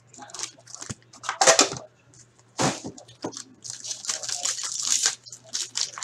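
Hands handling a boxed trading-card pack, with a few short scrapes and snaps. Near the end a foil card wrapper is torn open, giving about a second of crinkling.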